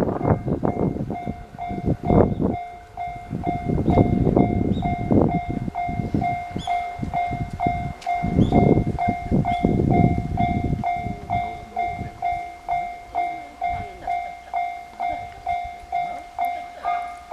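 Railway level crossing warning bell ringing steadily at about two strokes a second. For the first ten seconds or so a train passes over the crossing, its wheels rumbling and knocking over the rail joints. After the train has gone the bell keeps ringing alone.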